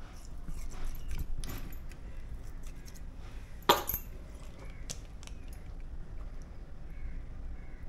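Small clinks and taps of hands handling food and utensils at a kitchen counter, with one sharp click a little under four seconds in.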